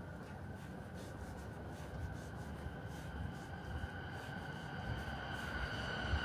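Electric commuter train approaching, a high steady whine growing louder over the second half above a low rumble.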